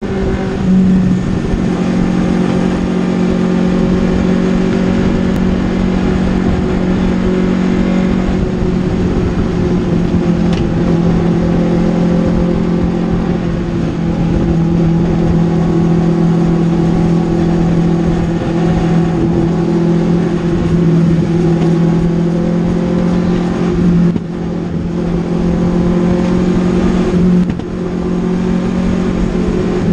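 Legends race car's Yamaha motorcycle engine running at steady throttle, heard from inside the car's cabin, with two brief lifts off the throttle near the end.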